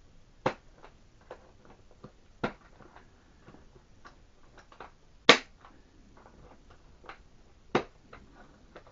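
Plastic clicks and knocks from handling the parts of a Fluval FX6 canister filter during assembly: four sharper knocks a couple of seconds apart, the loudest a little past halfway, with fainter ticks between.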